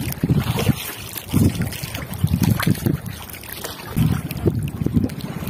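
Water sloshing and trickling against a small boat's hull, with wind gusting on the microphone and now and then a light knock.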